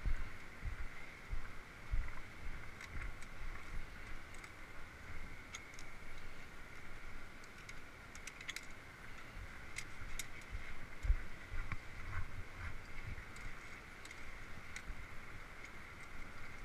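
Footsteps on a gravel and rock ledge path with irregular low thumps, and scattered light metallic clicks from via ferrata carabiners on the steel cable. A faint steady high-pitched drone runs in the background.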